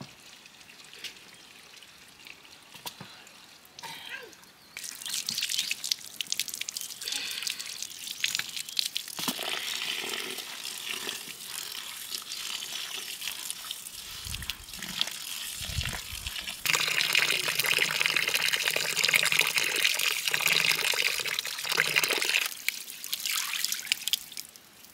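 Water from an outdoor tap running and splashing into a plastic basin as rice is rinsed by hand, with the cloudy rinse water tipped out onto wooden boards. The water starts about five seconds in, is louder for a stretch in the second half, and stops just before the end.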